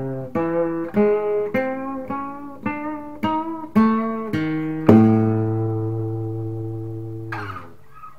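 Flamenco guitar (nylon strings) playing a picado exercise: single picked notes, about two a second, then a loud low final note or chord that rings for about two and a half seconds. The strings are damped near the end with a short brush.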